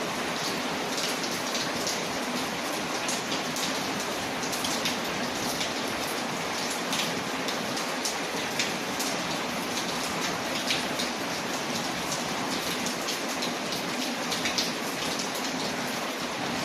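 Steady rain on a window mixed with a crackling wood fire: an even hiss of rain, dotted throughout with many small, sharp ticks and pops.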